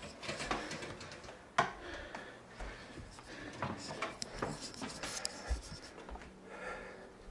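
Scattered rustling and light knocks of objects being handled, with one sharp click about one and a half seconds in.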